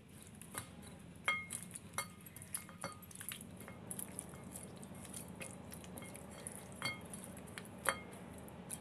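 A hand mixing a wet spice marinade into raw chicken pieces in a ceramic bowl: faint handling noise with scattered light clinks against the bowl, a few of them ringing briefly.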